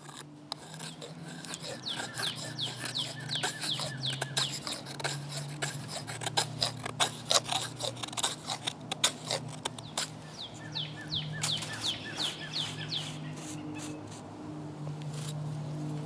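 A Leatherman Wave multi-tool blade scraping a wooden stick in irregular rasping strokes, raising fine shavings. The strokes come thickest and loudest about halfway through.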